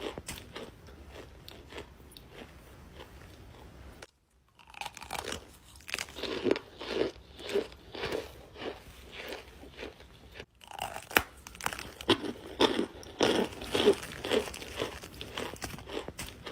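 Compressed cornstarch blocks being chewed close to the microphone: steady crunching chews at about two a second, broken twice by a brief silence.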